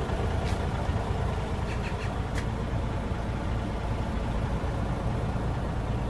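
Kia Parkway coach's diesel engine idling steadily, with two light clicks.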